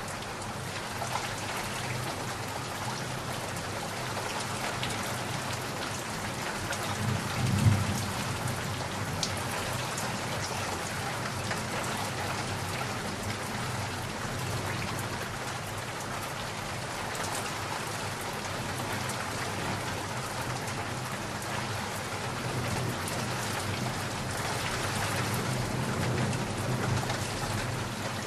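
Steady rain falling, with a short low thunder rumble about a quarter of the way in and a longer, softer rumble of thunder near the end.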